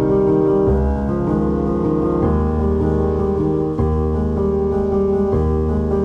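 Background music led by piano, with chords and a bass note that change about every second and a half.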